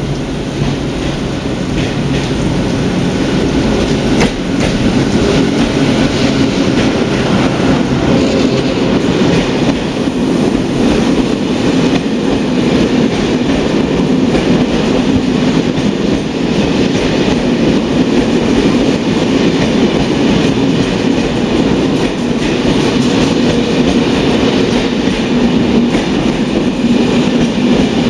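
An SNCF Intercités train of Corail passenger coaches rolling past along the platform: a loud, steady rumble of steel wheels on the rails, with faint irregular knocks.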